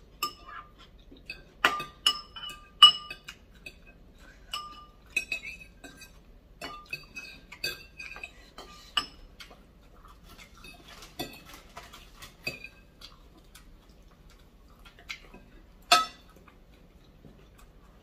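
Metal cutlery clinking against a bowl in irregular, ringing taps. The loudest cluster comes about two to three seconds in, and there is one sharp clink near the end.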